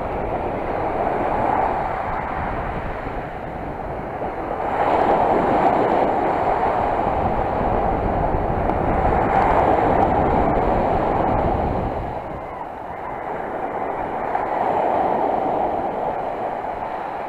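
Sea surf washing onto the shore, the noise swelling and easing every few seconds as waves come in.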